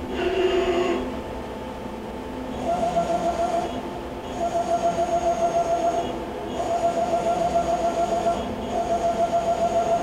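Axis servo motors and feed screws of a Bridgeport Romi EZ Path CNC lathe whining as the carriage and cross-slide are jogged with the joystick. The whine comes in five moves of one to two seconds with short pauses between them; the first is lower in pitch than the four after it.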